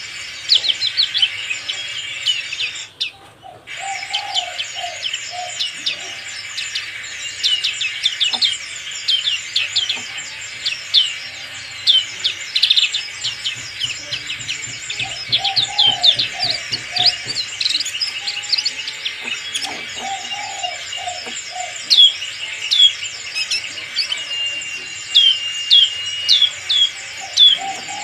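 Black-capped white-eye singing a fast chatter of short, high chirps, each sweeping downward, with one longer held whistle near the end.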